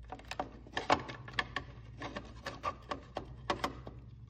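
Irregular clicks, taps and rubbing as hands work wires and plastic connectors into the plastic cover of a Minn Kota Powerdrive trolling-motor head, over a steady low hum.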